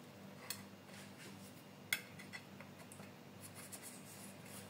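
Kitchen knife cutting through a freshly baked cake with a crisp top: faint scraping, with two light clicks about half a second and two seconds in.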